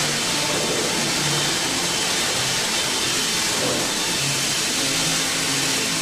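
WRAVOR WRC 1250 AC horizontal band sawmill running, a steady mechanical noise of its motors and machinery.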